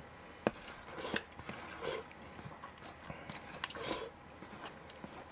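A person chewing a mouthful of rice soaked in hashed-beef sauce, with soft wet mouth smacks and a few short sharp clicks about once a second.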